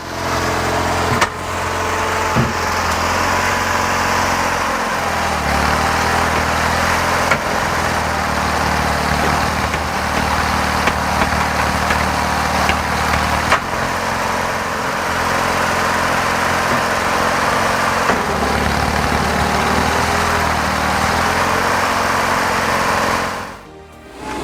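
Log-splitting machine's motor running steadily, its hum shifting slightly now and then, with a few sharp knocks of the machine working the wood.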